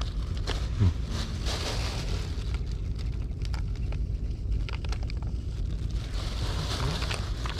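Plastic bag and bait packet crinkling and rustling in handling, with scattered short crackles and one louder thump about a second in. Wind rumbles steadily on the microphone underneath.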